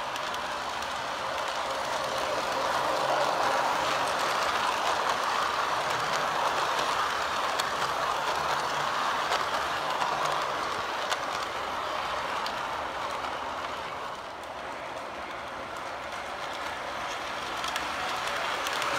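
MTH R33 O-gauge model subway train running along the track past the microphone: a steady rolling rumble of wheels and motors with a few faint clicks, easing off a little in the second half before building again near the end.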